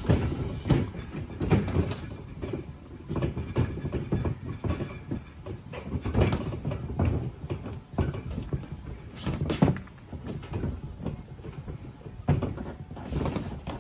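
Boxing sparring in a ring: irregular thuds and slaps of gloved punches and footwork on the ring canvas, with a few sharper knocks standing out, two of them close together about nine seconds in.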